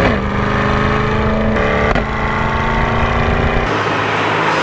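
C8 Corvette Stingray's naturally aspirated 6.2-litre V8 running under way, heard from the cabin of the convertible. Its note drops in pitch right at the start and again about two seconds in, as the gearbox shifts. Near the end the sound changes abruptly to the car heard from outside as it drives toward the microphone, with more hiss and less low engine rumble.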